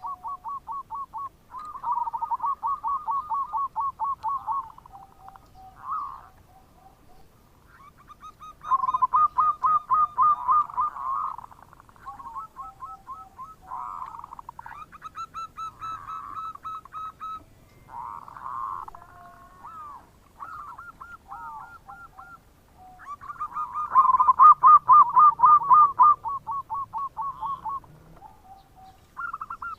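Zebra dove (perkutut) cooing its 'bekur' song: phrases of rapid staccato coos, several times over with pauses between. The loudest phrase comes near the end.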